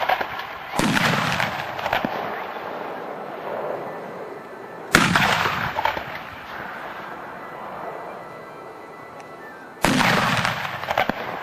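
Three heavy artillery blasts, about five seconds apart, each a sudden bang trailing off in a long rolling echo.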